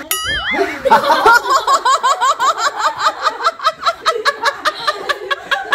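People laughing hard in a rapid run of short bursts, about five a second, starting about a second in. A short high wavering squeal comes just before it.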